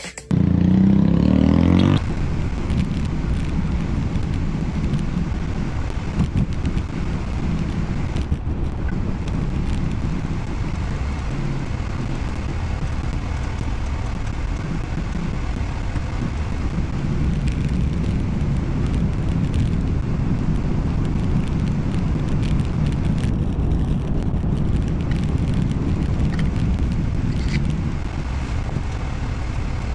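Steady low rumble of car engine and road noise heard from inside the cabin, with a louder rush for the first two seconds.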